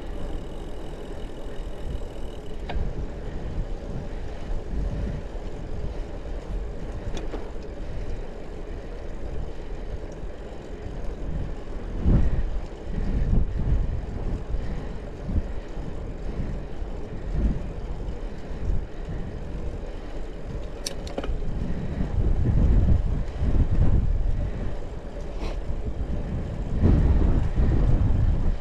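Sound of a bicycle being ridden: a low, uneven wind rumble on the microphone that gusts louder in the last few seconds, with a few sharp ticks.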